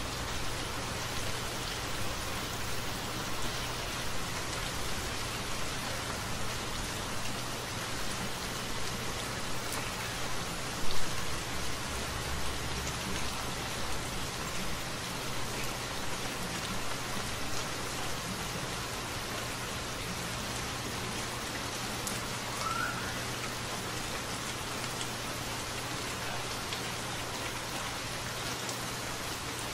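Steady rain falling, an even hiss with no thunder. There is one brief louder sound about eleven seconds in.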